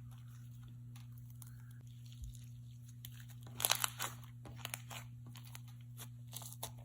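Crunchy foam-bead cereal slime being squished and stretched by hand, giving scattered crackling pops, densest about three and a half seconds in, over a steady low hum.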